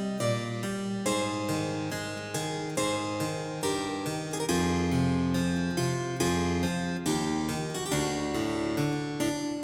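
Background harpsichord music in a baroque style, a steady stream of quick plucked notes.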